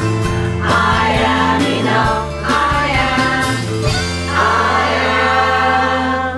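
Women's choir singing with instrumental backing that holds steady low notes, ending on a long held final chord.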